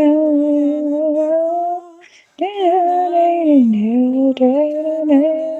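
A voice singing a slow melody with long held notes, in two phrases with a brief break about two seconds in.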